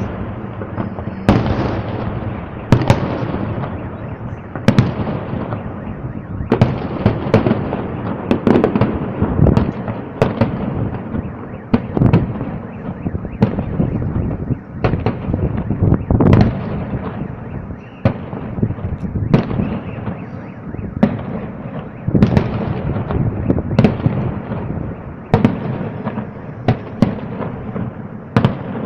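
Aerial fireworks shells bursting in a steady barrage, a sharp bang every second or two, each followed by a rolling, echoing rumble that fills the gaps between them.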